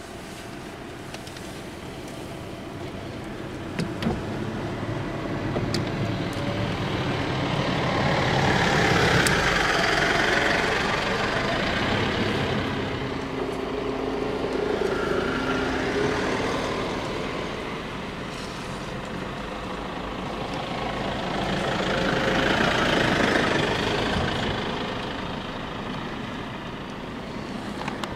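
Motor vehicles on a paved road: a low, steady engine hum, swelling twice into louder engine and tyre noise that builds and fades, about nine and twenty-three seconds in, as vehicles pass.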